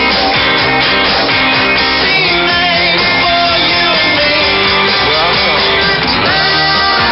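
Guitar rock music, heavily compressed and clipped by a shortwave broadcast audio processor: dense, constantly loud, with everything above about 5 kHz cut off.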